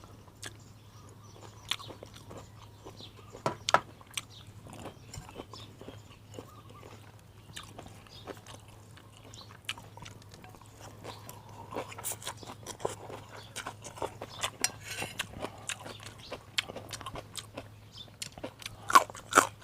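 Close-up eating sounds: a person biting and chewing a mouthful of beef noodle soup, with scattered crunches and small clicks, sparse at first and more frequent from about halfway on. A faint steady low hum runs underneath.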